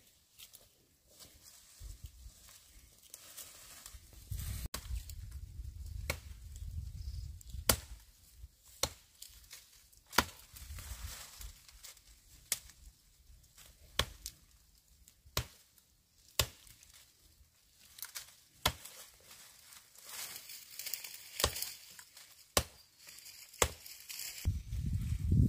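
Blade chopping into a sapling's trunk with sharp strokes about one a second, leaves and brush rustling between the blows.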